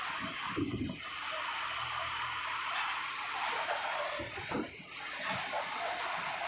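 Steady rush of sea water, with gusts of strong wind buffeting the microphone about half a second in and again near the end.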